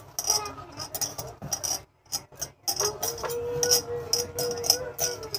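Bangles clinking and jingling against each other and a steel bowl in short, irregular strikes as a hand mixes a dry stuffing mixture. A steady held musical note joins about halfway through.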